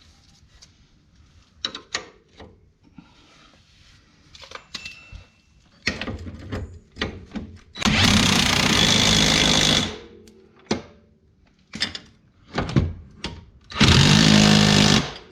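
Power impact wrench run in two bursts of about two seconds each, tightening the rear shock's mounting bolts. Short metallic clicks and knocks of tools and parts come in between.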